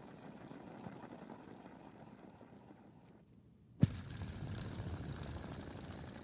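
Fidget spinner whirring and fading as it slows, falling quiet about three seconds in. Then a sharp click as it is flicked, and it whirs again, louder.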